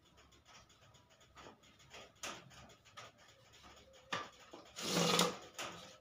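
Light clicks, taps and rubbing of wooden cage parts being handled and fitted together, with a sharper click about four seconds in and a louder, brief rasping noise about five seconds in.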